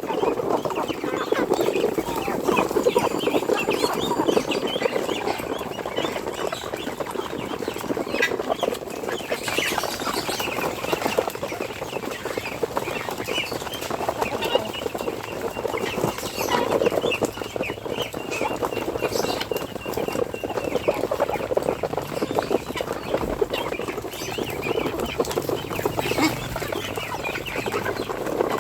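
A flock of chickens clucking continuously, many birds calling over one another.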